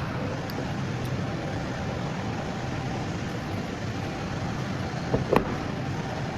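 A car engine running steadily, with two sharp knocks about five seconds in.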